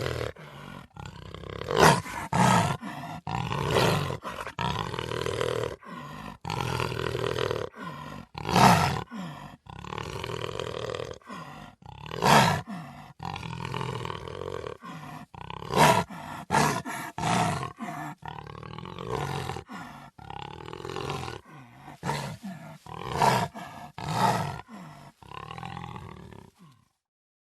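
A big cat roaring: about a dozen loud, harsh calls in choppy stretches broken by sudden cuts. It stops just before the end.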